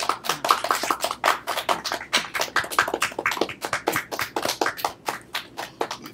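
A small group of people applauding, their separate claps dense and irregular, thinning out near the end.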